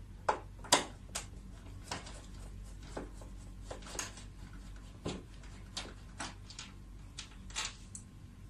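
Irregular sharp clicks and light taps, about two a second, from handling the plastic front cover and screws of a split-type air conditioner's indoor unit while it is taken apart.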